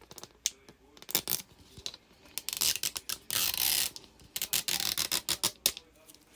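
Hands unwrapping and opening a plastic Mini Brands capsule ball: a run of small sharp plastic clicks and ticks, with a longer stretch of crinkly plastic rustling from about two and a half to four seconds in.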